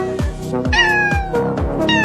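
Music with a steady kick-drum beat and cat meows over it: two falling meows, one a little before the middle and one near the end.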